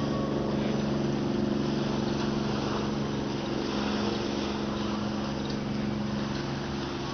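Boat engine running steadily: a low, even drone that holds its pitch.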